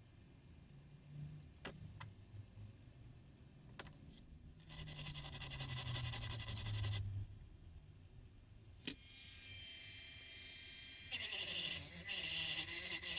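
A few light clicks and knocks, then about two seconds of hiss, then a small electric motor tool starting up with a steady whine that grows louder near the end.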